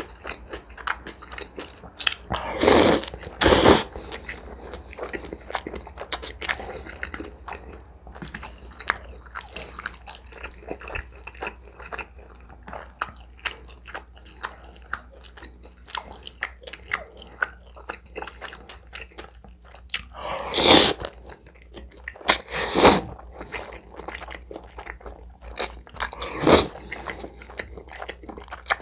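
A person eating spicy tomato-broth spaghetti: wet chewing and small mouth clicks throughout, with five loud noodle slurps, two close together about three seconds in and three more near the end.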